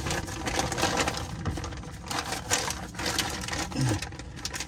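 Plastic bag crinkling and rustling in irregular bursts as a used oil filter and a paper towel are handled in it.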